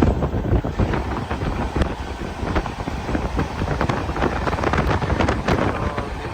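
Wind buffeting the microphone over a steady low rumble, with irregular gusting thumps throughout.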